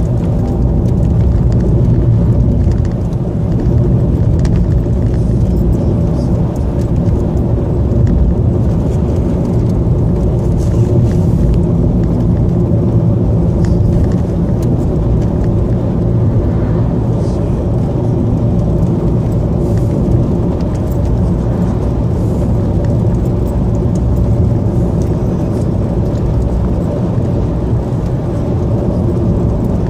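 Car driving at a steady speed, heard from inside the cabin: engine and tyre noise making an even low rumble with a steady hum.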